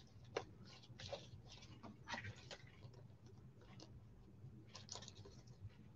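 Faint, irregular light clicks and rustles of trading cards being handled and flipped through, over a low steady room hum.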